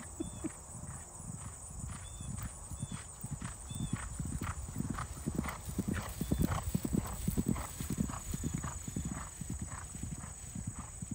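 Hoofbeats of two yearling colts cantering on grass under riders, a fast run of dull thuds that grows loudest as they pass close by about six seconds in, then fades as they move away.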